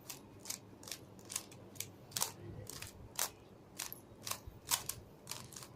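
Plastic pieces of a Rubik's cube clicking as the cube is taken apart: sharp, separate clicks about twice a second, irregularly spaced.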